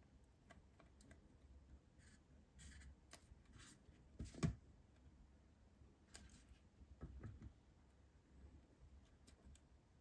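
Faint small clicks and crackles as a thin Kyarapaki character chocolate is broken apart by hand, with one sharper snap a little over four seconds in and a few more clicks around seven seconds.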